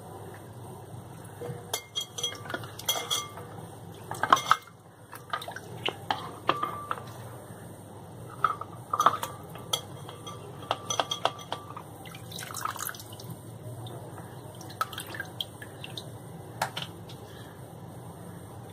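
Plastic lids handled in a glass bowl of water: scattered light clinks and knocks of plastic against glass, with water sloshing and dripping, over a low steady hum.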